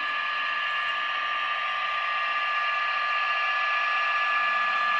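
HO-scale Metra MP36PH-3S model locomotive running along the track: a steady, tinny sound with two held pitches over a thin hiss, growing slightly louder as it draws nearer.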